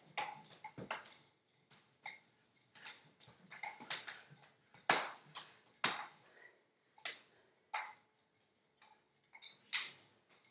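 A pair of nunchucks swung fast, one in each hand: a string of short, sharp swishes and clacks at an uneven pace, the strongest about five seconds in and again near the end.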